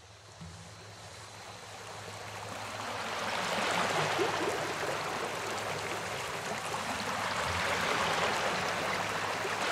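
Surf washing onto a sandy beach: a broad rushing wash of water that fades in from faint and is at its loudest from about four seconds in, with a faint steady low hum beneath it.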